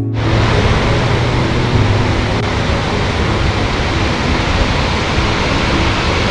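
Waterfall rushing: a loud, steady rush of falling water.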